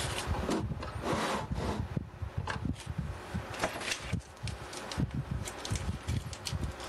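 Experimental noise track built from rubbing and scraping sounds: a dense scraping noise for about two seconds, then scattered, irregular clicks and knocks.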